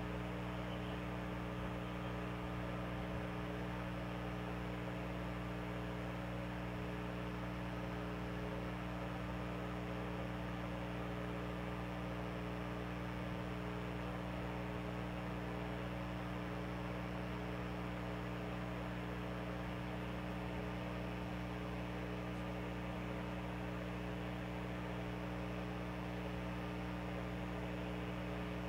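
A steady, unchanging hum made of several fixed tones over a constant hiss, like a motor or electrical equipment running continuously.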